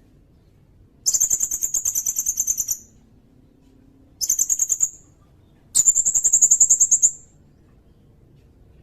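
Sirindet bird singing three high, rapid rolling trills, the first and last about a second and a half long and the middle one shorter.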